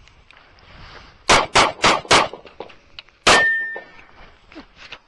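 Sig Sauer P365 9mm pistol firing: four quick shots about a quarter second apart, then a fifth shot a second later followed by a brief high ring.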